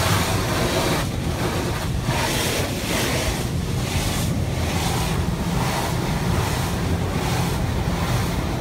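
Automatic car wash rinse jets spraying water onto the car's roof and windshield, heard from inside the cabin as a steady hiss and drumming with a low rumble underneath. The spray swells and fades about once a second as it sweeps over the car.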